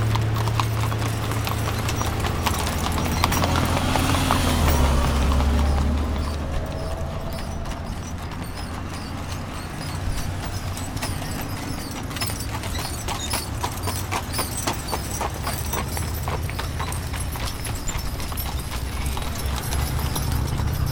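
Hooves of a mule team and a horse clip-clopping on asphalt as mule-drawn covered wagons and a horse-drawn buggy walk past. A low rumble runs under the hoofbeats for the first six seconds or so.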